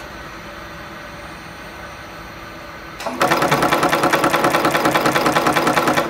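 EW-21D flexible flat cable crimping machine working: a low steady hum, then about three seconds in a loud, rapid, even mechanical clatter of its crimping strokes.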